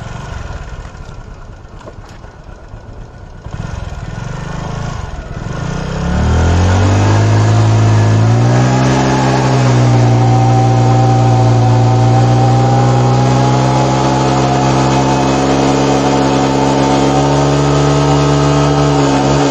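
Bajaj Pulsar motorcycle's single-cylinder engine, ticking over low for the first few seconds, then revved up about six seconds in and held steady at high revs, spinning the rear tyre in a burnout.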